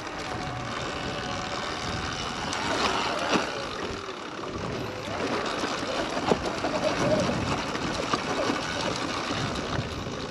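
Riding noise from a Surron Light Bee X electric dirt bike on a rough trail: a steady rushing of tyres and wind with scattered knocks and rattles, the sharpest about three and six seconds in.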